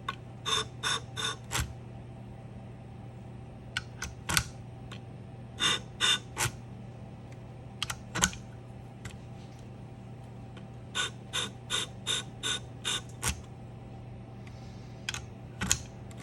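Scissor blade bevel touched briefly against the spinning diamond wheel of a Wolff Twice As Sharp scissor sharpener, over the machine's steady motor hum. The strokes come as short scrapes in quick groups, about four near the start, three around the middle and six later on. This is a scratch test to find the blade's factory bevel angle.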